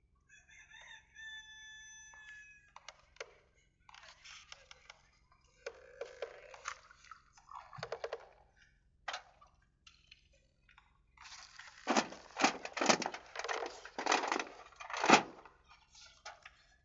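A rooster crowing once near the start, one long held call. Scattered short noises follow, then a run of loud, sudden sounds from about twelve to fifteen seconds in.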